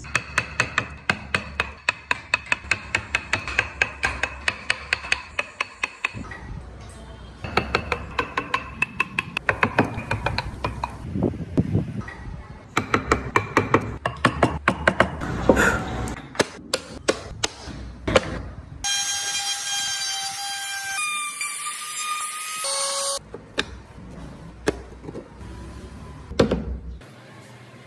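A mallet striking a wood chisel as it cuts into the wood, rapid repeated knocks at about four a second in runs of several seconds. In the later part a steady high whine lasts about four seconds.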